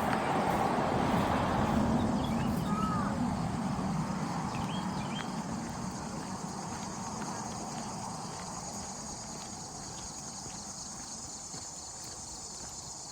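Steady, high-pitched chorus of insects such as crickets, with a broad rushing sound that swells over the first couple of seconds and slowly fades, and a few short bird chirps.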